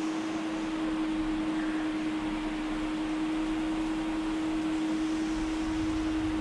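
Electric pedestal fan running: a steady hiss of moving air with a constant hum.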